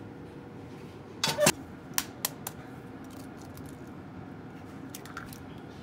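Short sharp clicks and clinks of kitchenware over a steady low hum, the loudest pair about a second in, then light taps near the end as an egg is cracked over a glass measuring cup.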